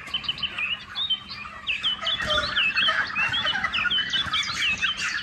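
A flock of broiler chickens peeping and chirping, many short high calls overlapping without a break.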